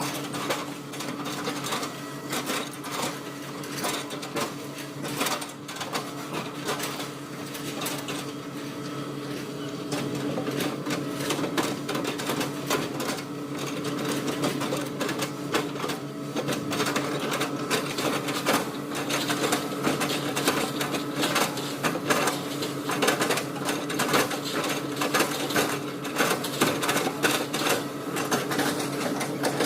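Hitachi excavator's diesel engine running steadily under load, with dense cracking and crunching as it chips oil palm trunks. The sound grows louder from about ten seconds in.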